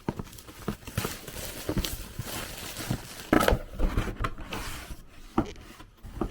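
Cardboard box and packaging of a CPU liquid cooler being handled and opened: irregular rustling, crinkling and light knocks, with a louder rustle about halfway through.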